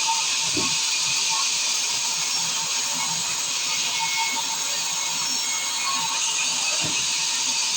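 Sawmill machinery running steadily, a continuous hiss with a faint steady whine, and a couple of brief low knocks.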